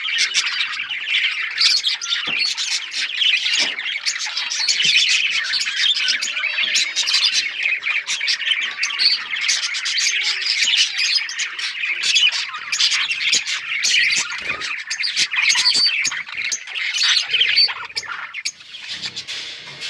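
A flock of budgerigars chirping and squawking together in a continuous, busy chatter of many overlapping calls.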